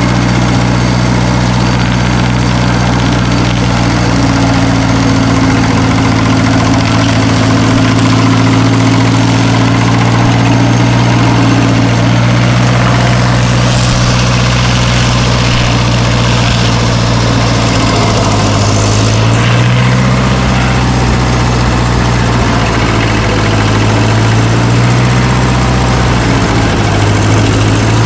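Engine of a piece of earthmoving equipment running steadily, its pitch sagging briefly twice in the second half as it takes load.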